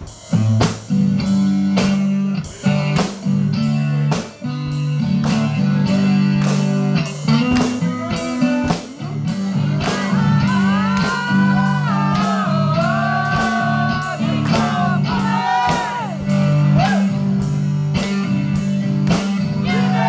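Drum kit played in a steady rock beat, about two hits a second, with a guitar playing along in a blues-rock jam. From about ten seconds in, a lead line of sliding, bending notes comes in over the beat for several seconds.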